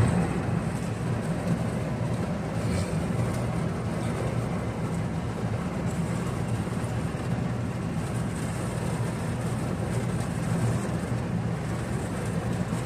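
Heavy rain falling steadily, a dense even rush with a low rumble underneath.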